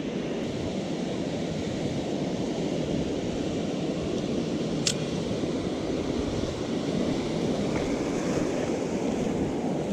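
Ocean surf breaking and washing up a beach in a steady rush, with wind buffeting the microphone. A single sharp click about halfway through.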